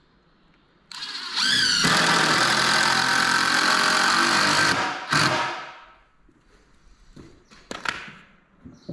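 Cordless impact driver driving a 4-inch screw into the timber frame for about four seconds: the motor rises in pitch as it starts, then runs steadily under load before stopping. A few light knocks follow near the end.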